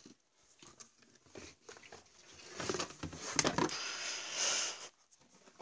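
Handling noises as a mini fridge and its packaging are moved about: scattered light knocks and clicks, with a stretch of rustling in the middle.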